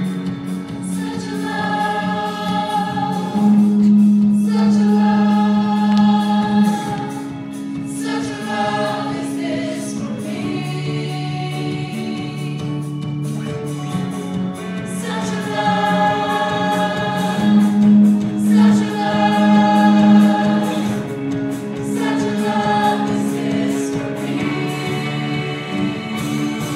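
Slow gospel song: a choir sings long held phrases in harmony over the accompaniment.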